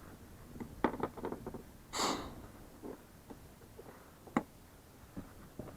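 Inflatable PVC boat being handled while it is let down: a few light clicks and knocks, one short hiss about two seconds in, and a single sharp click a little over four seconds in.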